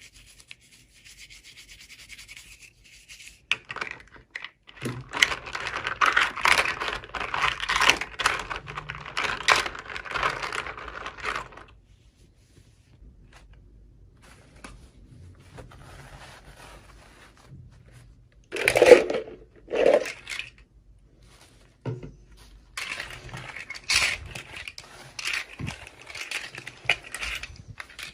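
Scratchy rubbing and rustling of hands handling toy packaging during an unboxing, coming in bursts, with two short louder rustles about two-thirds of the way through.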